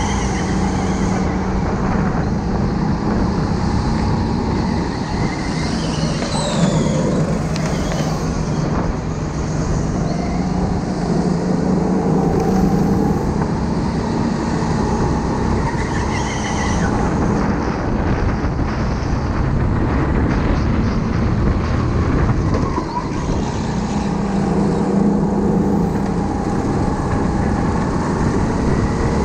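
Go-kart heard on board, running at speed around a track. Its pitch keeps rising and falling as it accelerates on the straights and slows for corners.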